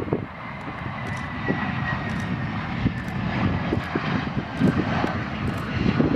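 F-35B's turbofan jet engine running as the jet rolls along the runway: a deep, rumbling roar with a thin high whine that slowly falls in pitch.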